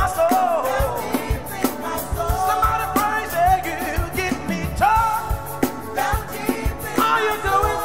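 Live gospel music: a lead singer and choir singing over a band with a steady drum beat.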